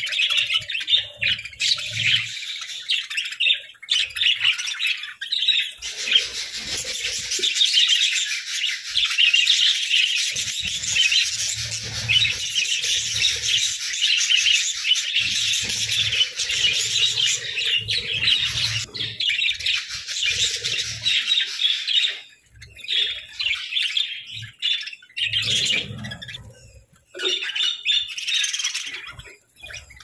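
A flock of budgerigars chirping and chattering, many birds at once in a dense, busy chorus. It breaks into short gaps in the last several seconds.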